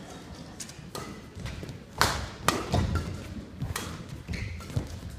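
Badminton rally: sharp racket strikes on the shuttlecock, roughly a second apart, the loudest about two seconds in, with players' footfalls and shoe squeaks on the court.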